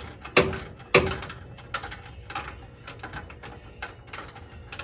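Hand ratchet clicking in short, irregular strokes against metal, with two louder metal knocks about half a second and a second in, as a bolt is worked loose by hand.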